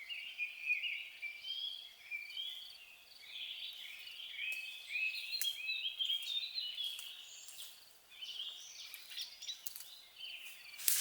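Birds singing in a steady chorus of many short, overlapping chirps and warbled notes.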